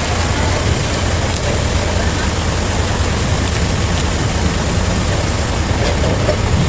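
Sawmill machinery running steadily: a continuous low motor drone under an even wash of mechanical noise, with no pauses or changes.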